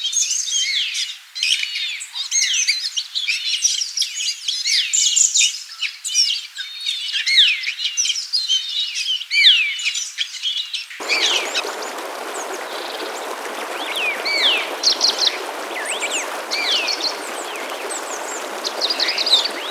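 Dense chorus of many small songbirds chirping and twittering, calls overlapping quickly. About eleven seconds in the recording cuts to a steady rushing background noise with fewer, scattered bird calls over it.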